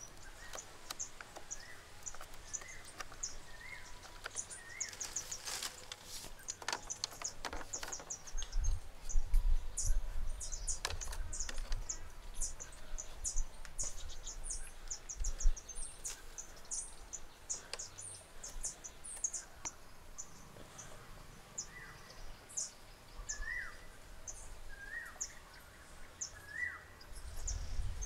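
Birds chirping steadily in woodland, with a few short rising-and-falling calls near the start and again near the end. Sharp clicks from bamboo stakes and wire being handled come a few seconds in, and a low rumbling follows near the middle.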